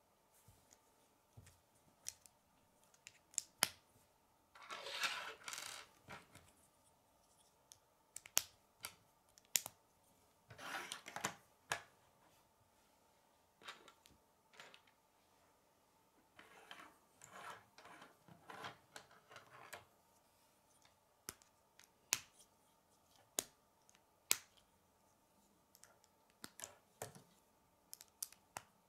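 K'nex plastic rods and connectors being snapped together and handled, giving many sharp separate clicks with two short rustling, rattling stretches of plastic pieces moved about.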